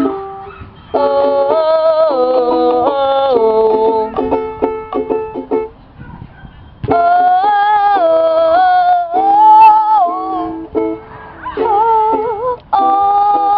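Ukulele played with a girl singing along, her voice wavering over the plucked chords; the playing breaks off briefly about half a second in and again around six seconds in before starting up again.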